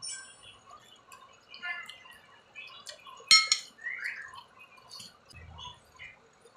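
Close-up sounds of a person eating: wet smacking and sucking noises from chewing and picking at chicken feet, with a louder sharp click a little over three seconds in and a short squeak just after.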